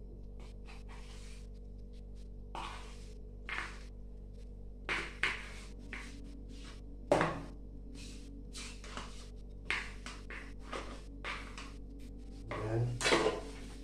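A spoon scraping and tapping cream out of a small cup into a plastic mixing bowl: scattered short scrapes and taps, with one sharper knock about seven seconds in.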